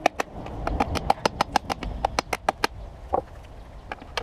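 Hammer tapping a tool into the plastic lid of a lead-acid car battery to crack the welded top off: a quick run of sharp knocks, about six a second, stopping shortly before three seconds in, then a few single knocks.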